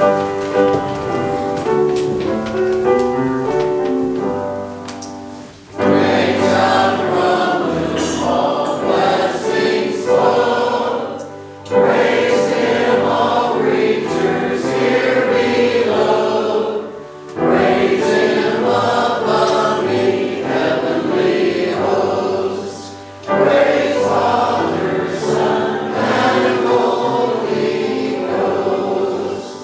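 A church choir singing a hymn with keyboard accompaniment, in phrases of about six seconds with short breaks between them. The first few seconds are mostly the accompaniment before the voices come in fully.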